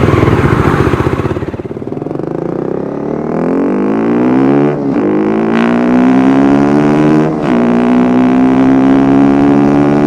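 Honda CBR250R single-cylinder engine through an Akrapovic exhaust, easing off briefly and then accelerating hard, its pitch climbing steadily. The climb breaks twice for upshifts, about five seconds in and again about two and a half seconds later.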